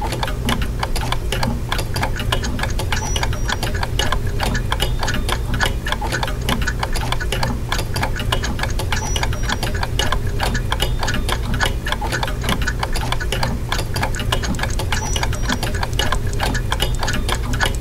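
Rapid, dense ticking over a steady low hum, with a short faint high tone about every six seconds.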